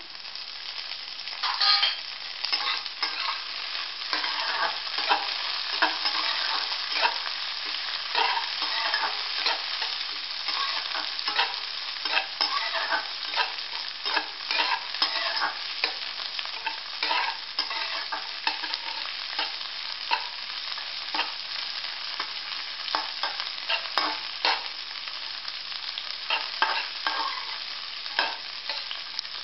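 Diced carrots, peas and onions sizzling in hot oil in a metal kadai, with a flat metal spatula scraping and clinking against the pan many times as the vegetables are stirred and sautéed.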